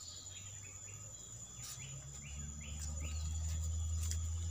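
A bird calling in a run of short falling chirps over a steady high insect trill, with a low steady rumble underneath that grows louder about halfway through.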